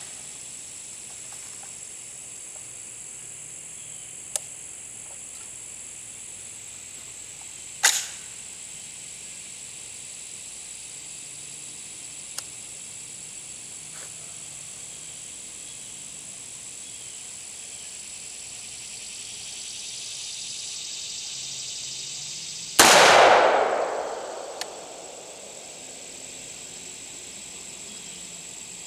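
A single shot from a 300 AAC Blackout pistol about 23 seconds in, loud and trailing off over about two seconds. A shorter sharp crack comes about 8 seconds in, and there are a few faint clicks. A steady high insect buzz runs throughout.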